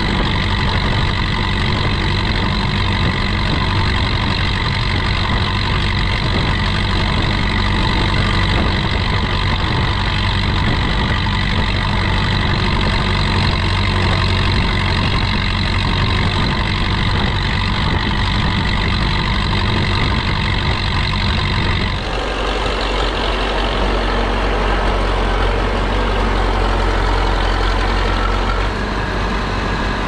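DT-75 crawler tractor's diesel engine running steadily under load as the tractor pushes snow with its front blade, heard close from the bonnet. About 22 seconds in the sound changes abruptly to a DT-75 diesel working snow heard from outside the machine.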